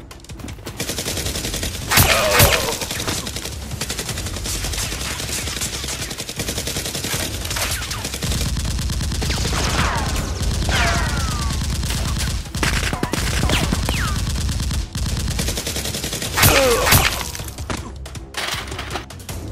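Rapid, continuous gunfire from Nerf blasters, with louder sharp bursts and falling sweeps about two seconds in, in the middle and near the end.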